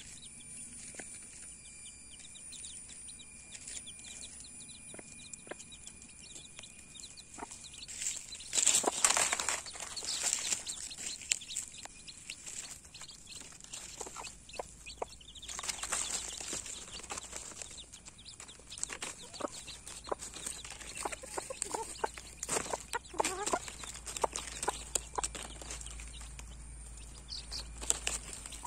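A hen clucking and chicks calling as they arrive to feed, with loud rustling and scratching in dry leaves that comes in bursts from about eight seconds in.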